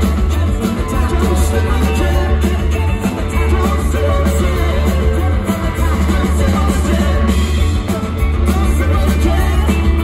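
Live psychedelic rock band playing loudly, with electric guitars, drums and a heavy low end.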